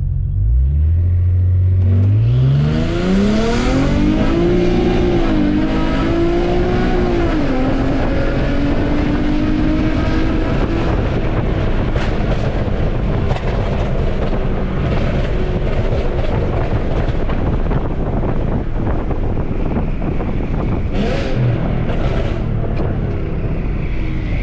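Infiniti Q50's 3.7-litre V6, fitted with long-tube headers and a 3-inch custom exhaust, under full-throttle acceleration: the revs climb steeply, dip at a gear change about five seconds in and climb again, then the engine settles into steady cruising with road noise. The revs fall away near the end.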